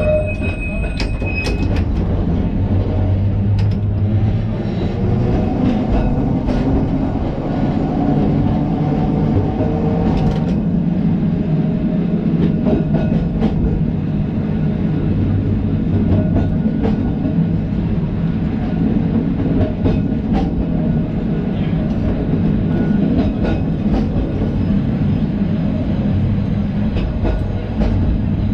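Liverpool tram No.762, a 1930s bogie car, running along the track as heard from its open driver's platform. A steady rumble of motors and wheels on the rails, with occasional clicks.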